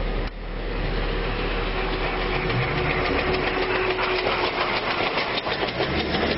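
The Botchan Ressha replica steam locomotive running past on street tram tracks. It is in fact driven by a diesel engine, heard as a steady engine noise, with a rapid, even ticking that builds through the middle.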